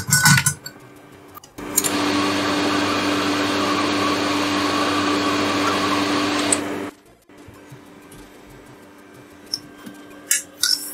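Desoldering gun's vacuum pump running for about five seconds, a steady hum with hiss that starts and cuts off suddenly, sucking solder from a socket's pins. A few light handling clicks come before it and near the end.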